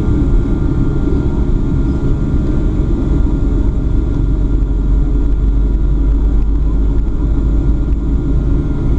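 Cabin noise of a Boeing 757-300 taxiing, heard from a seat over the wing: a steady low rumble of the jet engines at taxi power and the wheels rolling, with a faint steady whine above it.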